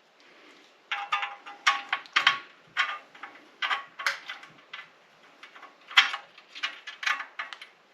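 Small metal bolts and washers clinking and tapping against the TV stand's metal bracket as they are handled and fitted. The clinks are irregular and lightly ringing, starting about a second in, with the sharpest one near the end.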